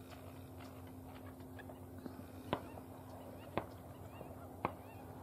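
Faint waterfowl calls over a steady outdoor background hum, with three sharp clicks about a second apart in the second half.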